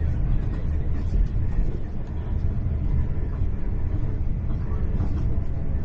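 Steady low rumble of a Hitachi Class 800 Intercity Express Train running along the line, heard from inside the passenger carriage, with faint scattered clicks and rattles.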